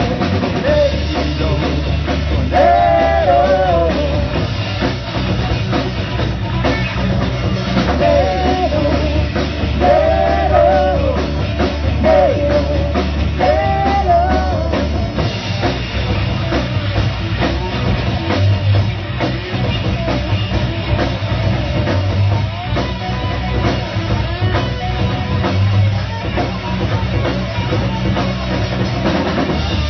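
Live rock band playing loud, with drums and bass throughout. A melody line bends up and down over the first fifteen seconds or so.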